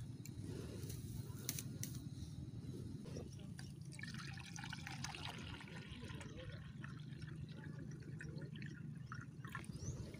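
Water poured into a small clear acrylic fish tank, splashing and bubbling as it fills, starting about four seconds in and tapering off near the end, over a steady low background rumble.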